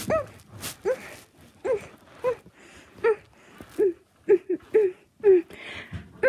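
A child chugging water from a bottle, a short squeaky voiced gulp in the throat about twice a second.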